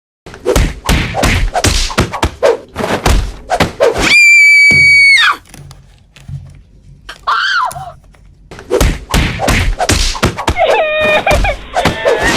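Quick clicks and knocks of small plastic toy pieces being handled, broken about four seconds in by a loud, held high-pitched scream-like tone lasting about a second. Near the end a wailing, crying voice starts.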